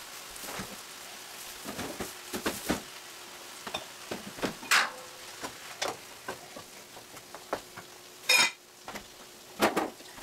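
Tomato and meat sauce sizzling in a skillet while a wooden spoon stirs it and knocks and scrapes against the pan in irregular strokes. A louder clatter comes about eight seconds in.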